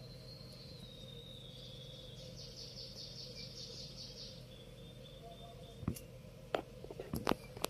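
Faint outdoor background with a steady high-pitched tone and a short rapid trill in the middle, typical of insects or birds. A few sharp clicks come near the end.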